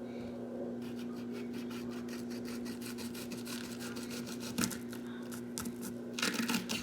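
Dry rubbing and rustling in quick strokes as an onion is handled for cutting, starting about a second in, with a few louder knocks near the end. A steady low hum runs underneath.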